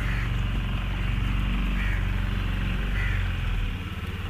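Motorboat engine running steadily with a low hum, dipping slightly near the end.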